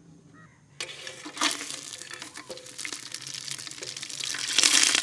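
Cinnamon and other whole spices sizzling and crackling in hot oil in a cooking pan. The sizzle starts suddenly about a second in as the spices hit the oil, and grows louder near the end.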